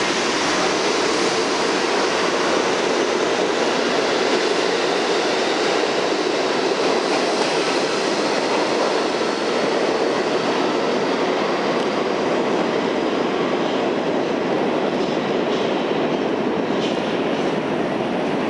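New York City Subway train of R68-family cars running along the track past the platform, a loud, steady rumble of wheels on rail with some clatter.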